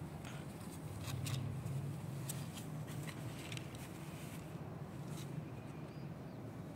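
Kittens shuffling in a cardboard box: soft scratching and rustling clicks from paws and claws on the cardboard, scattered irregularly over a steady low hum.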